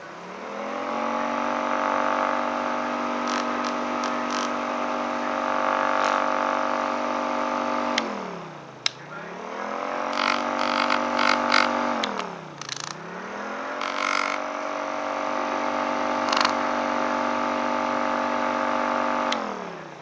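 Homemade air raid siren, a spinning rotor chopper driven by a Rainbow air freshener system's 120-volt motor, winding up to a steady wail made of several stacked tones. Its pitch dips and climbs back up twice midway, and it winds down near the end, with a few clicks over it.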